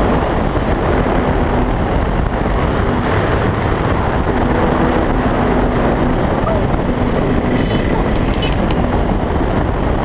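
Wind rushing over the microphone mixed with a KTM 390's single-cylinder engine running steadily at road speed.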